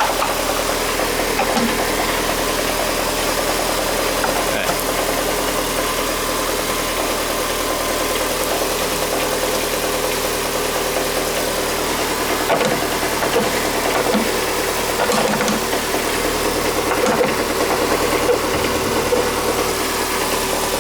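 Volkswagen Fox flex-fuel engine idling smoothly and steadily on ethanol, cold on the first start of the day, without vibration.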